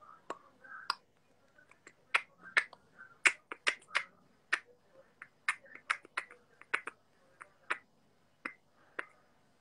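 About twenty short, sharp clicks and taps at uneven spacing, coming thickest through the middle of the stretch.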